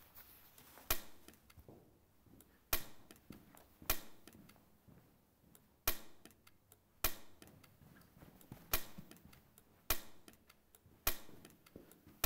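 Staple gun firing staples through the canvas into the wooden stretcher bars: about eight sharp clacks at uneven intervals of one to two seconds.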